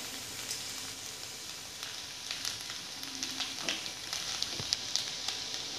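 Maggi noodles with prawns and vegetables sizzling in a hot pan, a steady frying hiss, with scattered light clicks and taps of a spatula stirring the pan.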